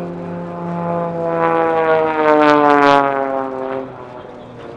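Aerobatic propeller plane making a close, fast pass: the engine and propeller note swells to a peak and falls in pitch as the plane goes by, then drops away sharply near the end.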